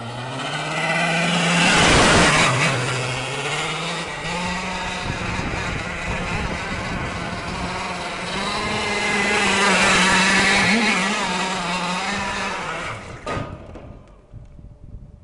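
Go-kart engine running as the kart circles, its pitch rising and falling with the throttle. It gets loudest twice as the kart comes close, about two seconds in and again around ten seconds. It fades out near the end.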